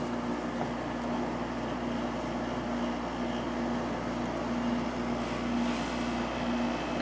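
Emerson Quiet Cool window air conditioner running with its compressor on: a steady hum under the even rush of the blower fan.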